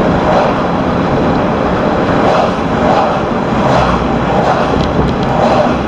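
Steady rush of road and wind noise inside the cab of a moving vehicle, with a few soft swells in the noise.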